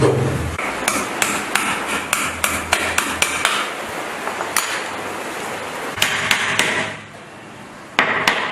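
Hammer blows, a quick run of light strikes about four a second for a couple of seconds, followed later by two short noisy bursts.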